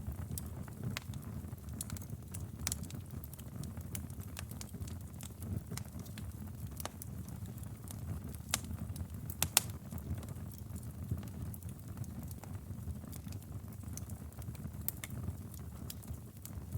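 Wood fire burning in a fireplace: a low steady rumble of flames with scattered sharp crackles and pops, the loudest pair about nine seconds in.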